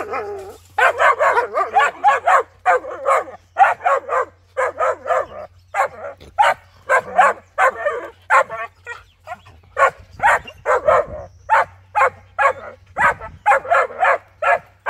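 Dogs barking in rapid runs, two or three barks a second, with a couple of short breaks.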